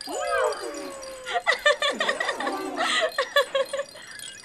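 A small creature's pitched calls: one that rises and slides down into a long, slowly falling tone, then shorter curving calls about two seconds in, with light clicks between.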